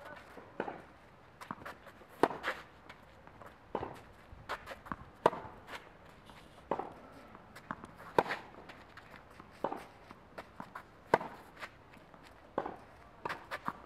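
Tennis rally on a clay court: sharp pops of racquets striking the ball, the loudest about every three seconds from the near player, with softer knocks of the far player's shots and the ball bouncing on the clay in between.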